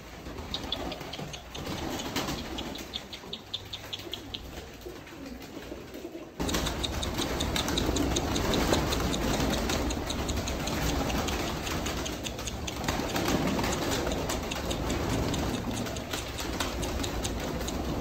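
Flock of pigeons on a concrete floor, first with light ticking of pecking; about six seconds in the sound turns suddenly louder with a steady mass of flapping wings as many birds flutter up, fly about and land.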